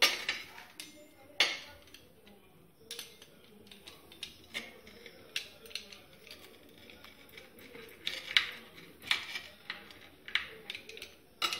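Pizza-wheel cutter slicing crisp oven-toasted cheese toast on a glass plate: a run of irregular sharp crunches and clicks, with quiet gaps between.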